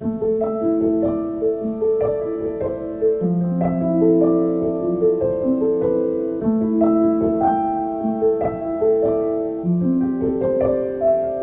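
Background piano music: a gentle melody of sustained notes over soft chords.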